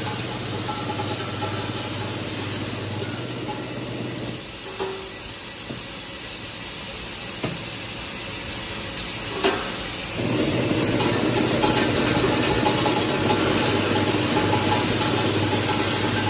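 ZYL-75 screw and bonded washer assembly machine running with its hopper and conveyor feeding and packing: a steady mechanical hum with three sharp clicks. The hum drops about four seconds in and comes back louder about ten seconds in.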